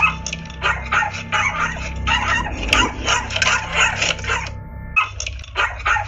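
A dog barking in a rapid string, about three barks a second, with a brief pause about four and a half seconds in, picked up by a Ring doorbell camera's microphone.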